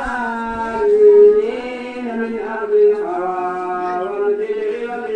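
A man chanting a supplication (dua) in a drawn-out melodic voice, with long held notes and short breaks between phrases.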